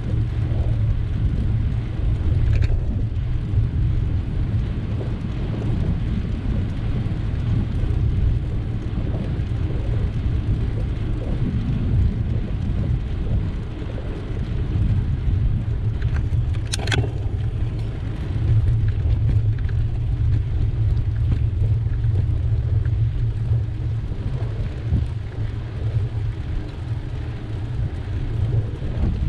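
Low, buffeting rumble of wind and road noise on a bicycle-mounted camera's microphone while riding. One brief sharp high sound comes about two-thirds of the way through.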